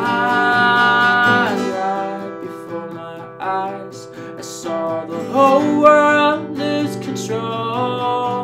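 Steel-string acoustic guitar strummed with a man singing along: one long held note that slides down about a second and a half in, then shorter sung phrases over the strumming.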